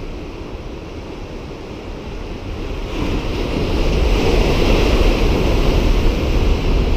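Sea waves washing and breaking against a breakwater, with wind buffeting the microphone as a low rumble. The wash swells about three seconds in and is loudest in the second half.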